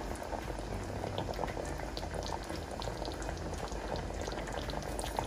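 Mutton curry gravy simmering in a degchi on the stove: a steady bubbling with many small scattered pops.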